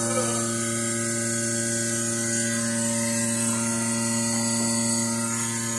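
Electric vacuum pump for a pail milking machine running with a steady hum.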